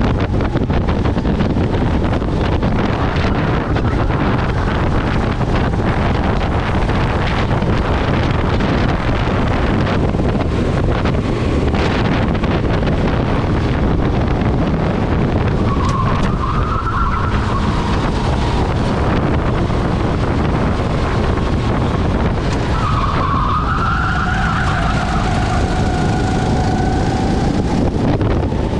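Rental kart at race speed heard from its onboard camera: loud, steady wind noise over the kart's engine. Twice, about halfway through and again about two-thirds through, the engine whine rises in pitch and then holds as the kart accelerates.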